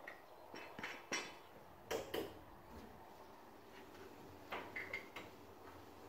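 Scattered light metallic clinks and knocks from a steel starting handle being handled in a Land Rover cab. The sharpest knocks come a little over a second and about two seconds in, with a few more around four and a half to five seconds in.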